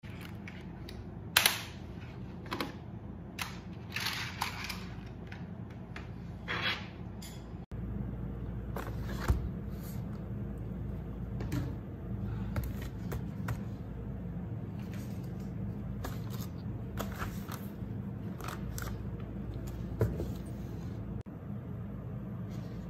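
Sharp clicks of a computer keyboard and mouse, single clicks and a short run of keystrokes; then, over a steady low hum, scattered taps and light rustles of a plastic blister pack being handled.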